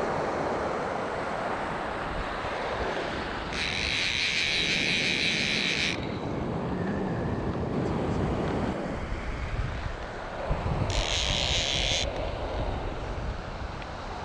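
Wind buffeting the microphone over the wash of shallow water, while a Wade Chanos fly reel buzzes twice: for about two and a half seconds a few seconds in, and again for about a second near the end.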